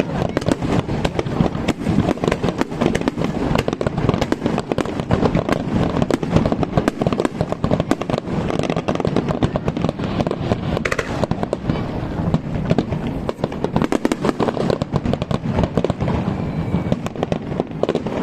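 Fireworks display: a dense, continuous barrage of firework bursts, many sharp bangs a second without a break.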